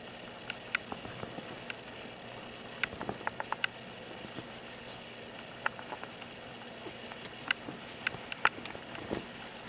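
Irregular light clicks and taps from a pug puppy play-biting and scrambling against a hand on a leather sofa, with quick runs of clicks about three seconds in and again near the end, over a faint steady hum.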